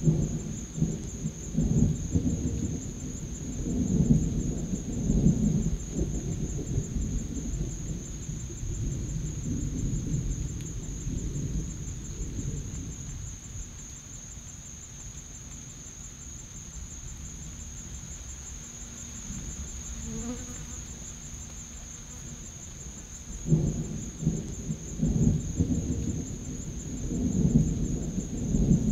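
Distant thunder rumbling in long low rolls that die down midway and build again near the end. Under it runs a steady high insect buzz.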